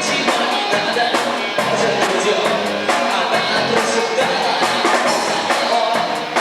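A rock band playing live, with a drum kit keeping a steady beat under guitars and other instruments.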